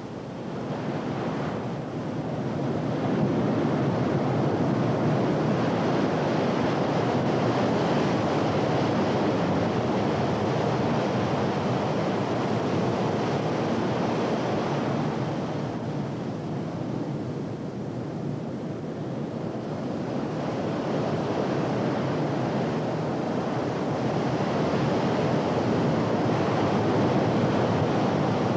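Ocean surf: heavy waves breaking in a continuous rushing wash. It builds over the first few seconds, eases off a little past halfway, then swells again.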